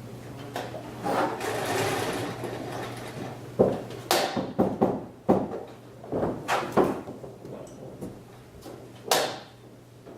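Sewing machine run in short, irregular bursts, with sharp clicks and knocks between them, over a steady low hum.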